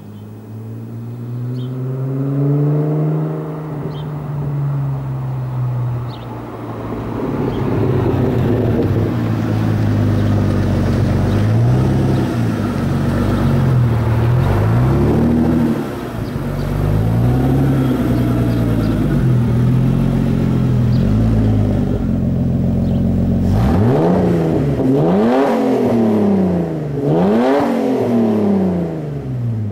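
Car engine running and being revved: its pitch rises and falls slowly several times, then three quick, sharp throttle blips near the end.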